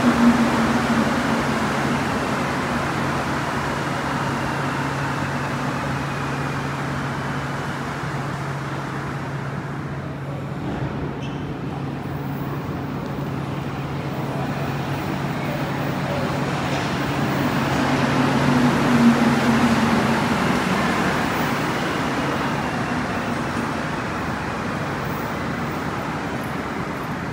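Rubber-tyred Montreal Metro train running in the station: a steady rumble with an electric motor hum. The hum's pitch falls slightly at the start and swells again about two-thirds through, and the steady hum cuts out soon after.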